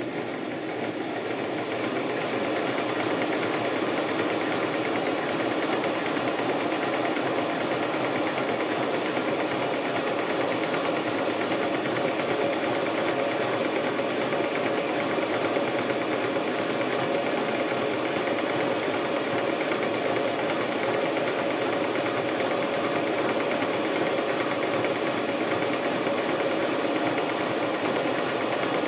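5 inch gauge GWR 14XX model steam locomotive running free on roller stands: a rapid, steady exhaust beat with the clatter of the coupling rods and valve gear, picking up speed over the first couple of seconds and then running evenly.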